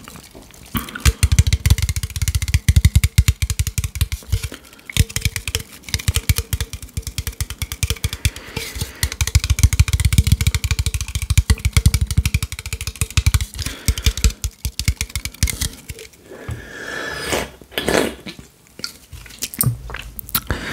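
Fingertips and nails tapping rapidly on an aluminium Coca-Cola Cherry soda can held up against the microphone, a dense run of quick clicks that thins out into sparser knocks and rustles near the end.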